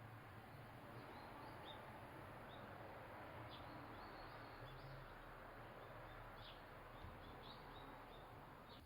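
Near silence: faint outdoor ambience with small, short, high bird chirps scattered throughout.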